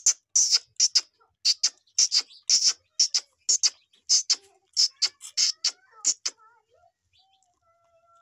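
Calf suckling straight from a goat's udder: a quick run of wet sucking noises, about three a second, that stops some six seconds in.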